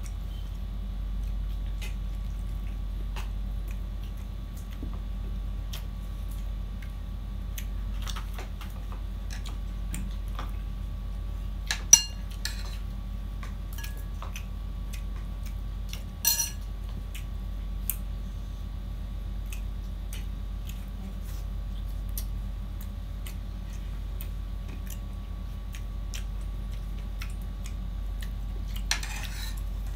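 Metal spoon clinking on ceramic plates and bowls while eating, with scattered light clicks. Two sharp ringing clinks come about twelve and sixteen seconds in. A steady low hum runs underneath.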